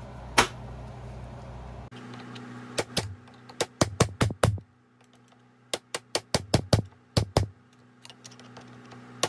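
Hammer striking a steel punch to stake the countershaft stake nut on a Ford Ranger M5R1 manual transmission, peening the nut's collar into the shaft groove so the nut cannot back off. A single sharp metallic tap comes first, then two quick runs of about eight taps each.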